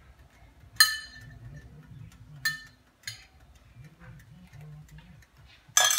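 A metal spoon clinking against cookware: two sharp, ringing clinks, a lighter tap, then a louder clatter just before the end.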